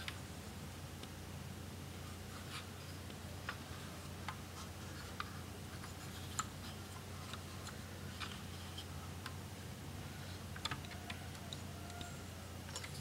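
Scattered faint clicks and taps of fingers handling a plastic Lego brick model, over a low steady electrical hum.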